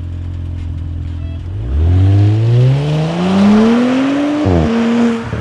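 Audi B9 S4's turbocharged 3.0-litre V6, exhausting through an ECS Tuning X-pipe in place of the centre muffler, idling and then accelerating hard away. The exhaust note climbs steadily for about three seconds, drops sharply at a gear change, holds briefly at lower revs and fades near the end.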